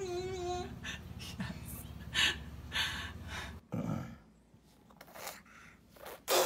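Young children's wordless vocal sounds. A toddler's drawn-out whining cry stops early, followed by breathy gasps and huffs. Near the end comes a baby's sudden loud gasping laugh that falls in pitch.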